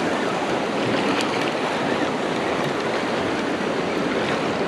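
Ocean surf breaking and washing along the shore, a steady rush of water noise.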